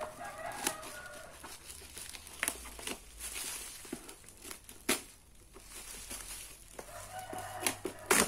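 Plastic bubble wrap crinkling as it is cut open with small scissors, with a few sharp clicks. Short pitched calls sound at the start and again near the end.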